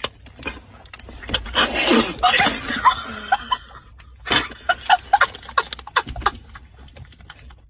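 Two women laughing and shrieking in irregular bursts, with a short lull in the middle and quieter laughter near the end.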